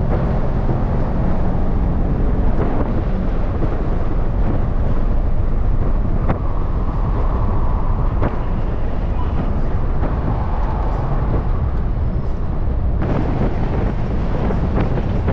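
Wind and road noise in the open cabin of a Nissan 370Z roadster driving with its top down, over the low sound of its V6 engine running. The noise changes abruptly about thirteen seconds in, turning brighter and hissier.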